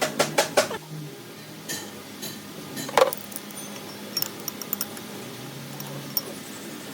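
Metal parts and tools clinking and being struck: a quick run of ringing taps in the first second, one louder ringing strike about three seconds in, then a few light clinks.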